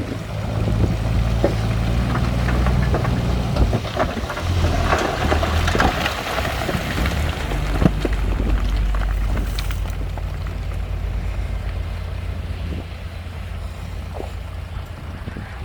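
Heavy diesel earthmoving machinery running with a low, steady rumble while loose stone rattles and clatters, the rattling thinning out after about ten seconds.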